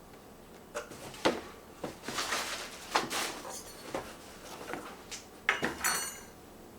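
Packaging being handled: irregular rustling with several sharp knocks and clicks, the loudest about a second in and again about five and a half seconds in.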